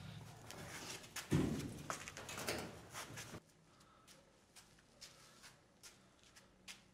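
Knocks, scrapes and a heavy thump about a second in, from something being handled and shifted at a truck cab. After about three seconds it drops to quiet room tone with a few faint clicks.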